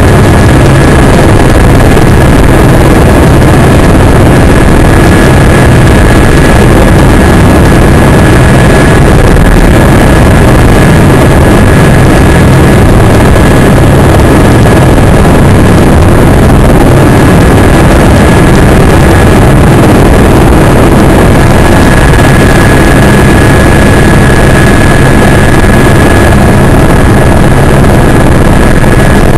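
Helicopter turbine engine and rotor running steadily, very loud and continuous, with a steady high whine over the rotor noise.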